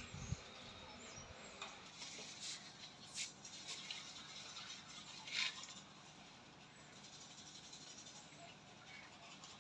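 Quiet outdoor ambience with a few brief dry rustles and crackles between about two and six seconds in.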